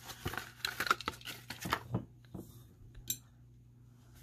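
A die-cast toy car being handled and set down on a hard tabletop. A run of light clicks and taps is followed by one sharp click about three seconds in.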